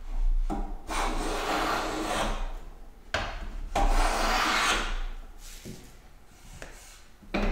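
Metal bench hand plane cutting fine shavings along a board's edge in two long, hissing strokes, its blade set for a light cut, to take down a side that is high and bring the edge square to the face. A few light knocks follow near the end.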